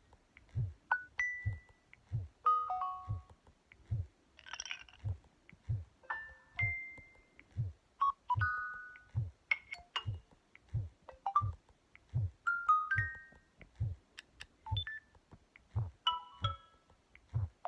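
LG Aristo 2 smartphone notification tones played one after another through the phone's speaker: a run of short chimes, dings and blips at different pitches, each lasting well under a second. A steady low thud about every 0.7 s runs underneath.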